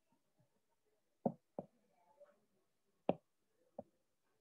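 Four short, dull taps in two pairs, the second pair about a second and a half after the first, with quiet in between.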